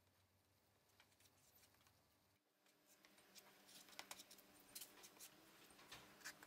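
Near silence, with faint scattered scraping clicks over the second half: a serrated plastic spreader drawn through white-pigmented resin.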